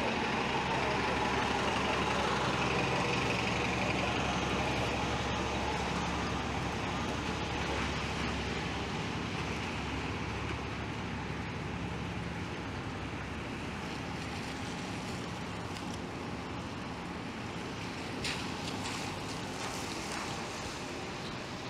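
Street traffic on a wet city road: a steady hiss with a vehicle engine's low hum that fades out around halfway through, the whole slowly getting quieter. A brief crackle comes near the end.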